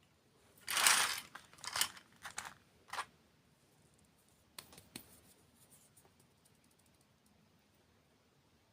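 Close-miked crunching of crisp candy being bitten and chewed: one loud crunch about a second in, a few smaller crunches up to about three seconds, then two faint clicks.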